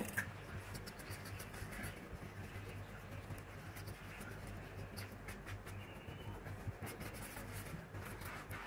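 Metal spoon stirring yeast liquid into a well of flour on a countertop: faint scratching and scraping with scattered light clicks.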